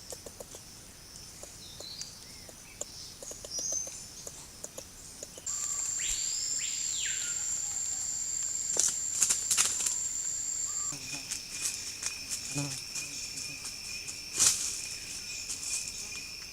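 Rainforest insects buzzing in steady, high-pitched drones, layered at several pitches, with a bird call that sweeps up and back down about six seconds in and a few sharp clicks. The background changes abruptly at about five and a half and eleven seconds.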